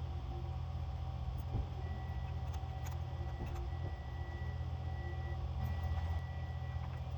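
A steady low mechanical hum, with a few faint clicks and a faint thin high tone that comes and goes in the middle.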